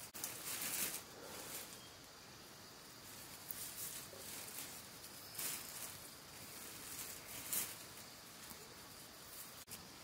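Bunches of leafy greens and a plastic bag being handled: soft, irregular rustling in short swishes every second or two.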